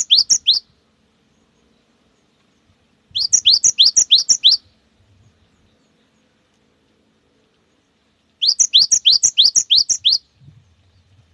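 Cinereous tit (gelatik batu) singing its fast 'wucit wucit' song. The song comes in phrases of about seven quick, rising whistled notes: one phrase ends just after the start, another begins about three seconds in, and a third begins near the two-thirds mark, with pauses between them.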